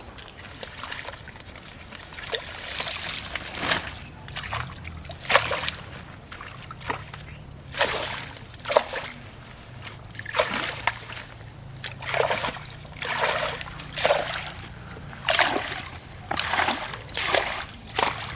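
Water splashing and sloshing in a pond in a series of separate splashes, roughly one a second, at irregular intervals.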